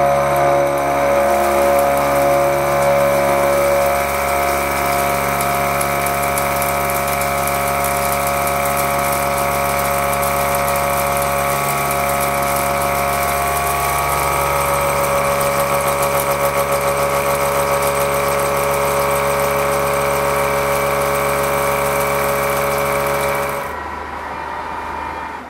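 Seco 335.25 disc milling cutter, 125 mm across with indexable inserts, cutting C45 steel by circular interpolation: a loud, steady machining hum made of many held pitches, which drops quieter near the end.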